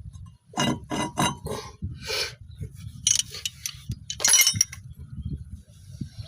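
A series of sharp metallic clinks and knocks with a short ringing tone, three in quick succession about half a second in and more scattered through the next few seconds.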